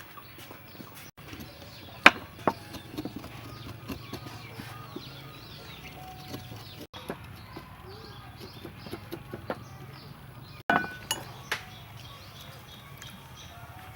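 Small birds or chicks chirping over and over, with a few sharp clinks of cooking utensils, the loudest about two seconds in and a cluster near eleven seconds.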